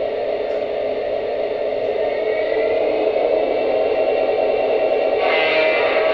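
Lionel Veranda gas-turbine model locomotive's onboard sound system giving a steady turbine whir while the train stands still. About five seconds in, a louder sound with several tones joins it.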